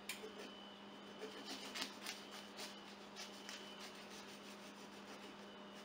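Kitchen knife cutting along a catfish fillet on paper towels, with faint, irregular scraping and paper-rustling strokes.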